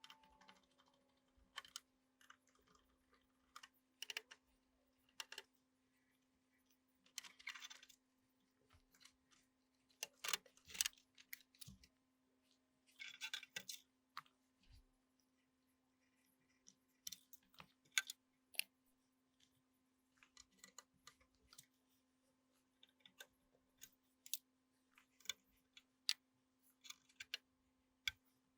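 Faint, irregular clicks, taps and short scrapes of small hard parts and hand tools being handled at a workbench, the kind of sound made when screws and circuit boards are worked on, with a steady low hum underneath.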